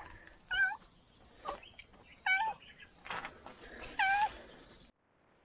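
Three short, wavering animal calls about a second and a half apart, with a few soft knocks between them; the sound cuts off suddenly near the end.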